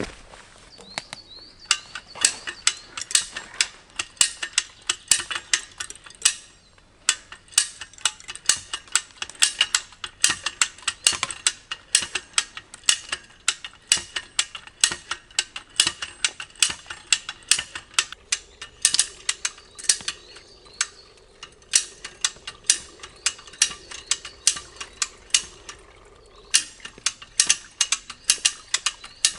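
A hand ratchet being cranked to tighten a strap under heavy load: fast runs of sharp metallic clicks, broken by a few short pauses.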